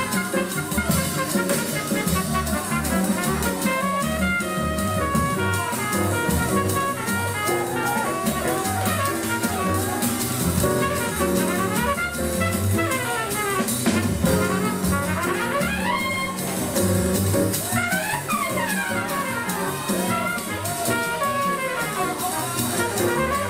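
Jazz music with trumpets and other brass over a drum kit, the horns sliding up and down in pitch in places about two-thirds of the way through.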